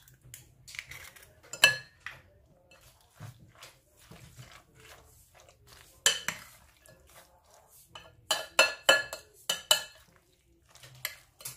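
Metal fork stirring a minced-meat and egg filling in a glass bowl, clinking against the glass with short ringing clinks and a soft mushy scraping between them. The clinks come every few seconds, then in a quick run near the end.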